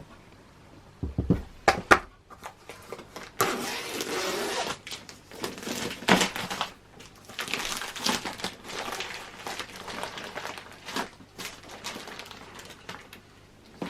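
Protective packaging wrap being pulled off and crinkled around a boxed cutting machine, in irregular rustles and clicks, with a few dull knocks about a second or two in as the machine is handled.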